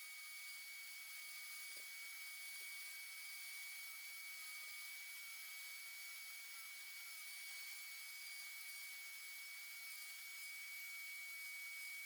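High-speed rotary engraving tool with a small diamond burr running with a faint, steady high whine, a lower tone wavering slightly as the burr cuts the knife handle scales.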